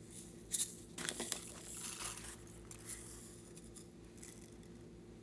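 A small plastic container's lid clicks open about half a second in, then plastic star-shaped glitter confetti rustles and patters as it is shaken out into a palm, with a few small ticks afterwards.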